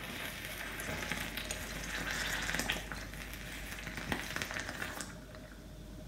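Burning magnesium ribbon reacting with steam inside a flask of boiling water, giving a steady crackling sizzle that dies down about five seconds in as the reaction ends.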